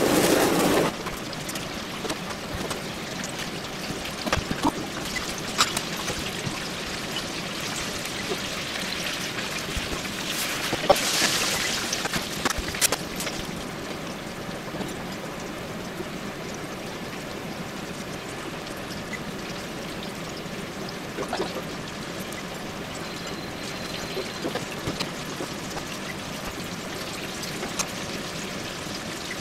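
Handheld butane kitchen blowtorch burning with a steady rush as it sears tuna, shutting off about a second in. After it, a steady watery hiss with scattered crackles and clicks continues.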